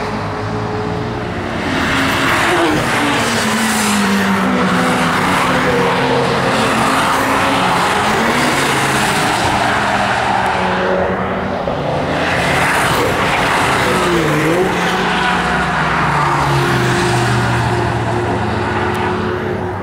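Several cars lapping a racetrack at speed, one after another, their engines overlapping as they pass. The engine pitch rises and falls as they brake and accelerate through the corners, with clear drops and climbs about eight and fourteen seconds in.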